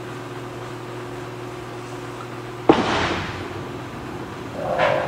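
Over a steady machine hum, a bowling ball crashes into the pins about halfway through: a sudden loud hit with a clattering tail that dies away over about a second.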